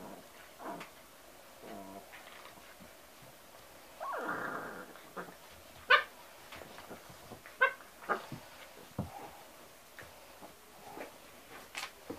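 Boxer puppies yipping and barking in short, sharp bursts. The loudest comes about six seconds in and another about a second and a half later, with a longer rough sound around four seconds and small scuffling clicks between the calls.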